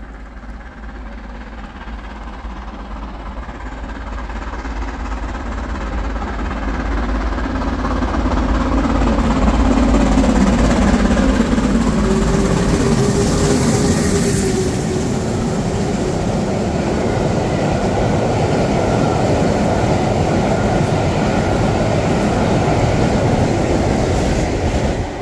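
LMS Stanier Class 5 steam locomotive 44932 working hard as it approaches and passes at speed with a railtour train, the sound of exhaust and wheels building for about ten seconds to a loud steady rumble as the coaches go by. A short steady note is heard about halfway through, and the sound drops away suddenly near the end as the tail of the train passes.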